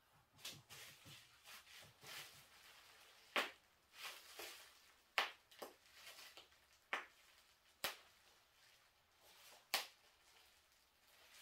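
Scattered light knocks and clicks, about six sharp ones at irregular intervals, with soft rustling between them: small painting materials and tools being handled and set down.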